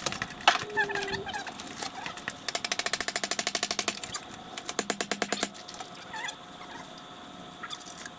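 Ratchet mechanism clicking rapidly, about a dozen clicks a second for a second and a half, then a shorter run of clicks about a second later.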